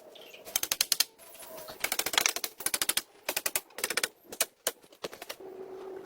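Several bursts of rapid, sharp clicking or tapping, each cluster well under a second long, with short gaps between them.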